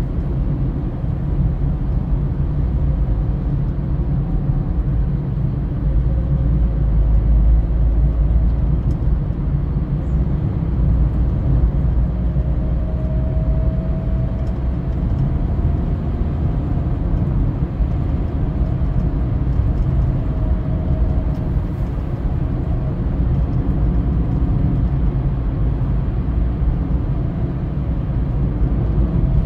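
Steady road and engine noise inside a car cruising on a highway: a continuous low rumble of tyres on the road, with a faint whine that drifts slightly up and down.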